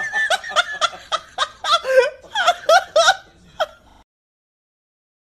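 A person laughing in quick, short giggles that cut off suddenly about four seconds in.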